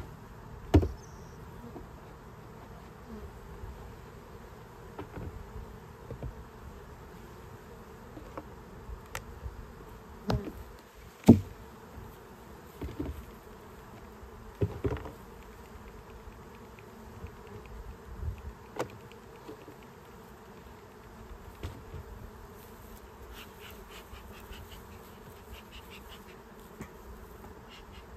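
Honey bees buzzing steadily around open hives, with a few sharp knocks and clatters as hive parts and plastic mite-wash gear are handled; the loudest knock comes about eleven seconds in.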